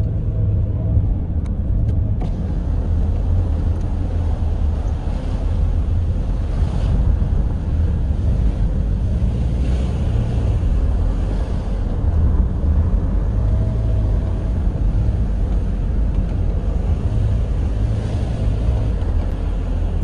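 Car driving slowly along a paved road, heard from inside the cabin: a steady low rumble of engine and tyre noise.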